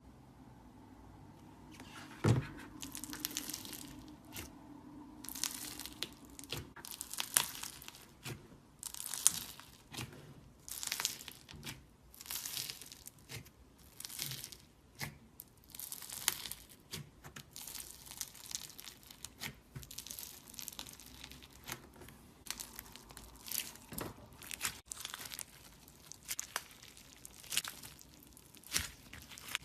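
Slime being squeezed and stretched by hand, crackling and popping in repeated bursts about once a second, with a sharp tap about two seconds in.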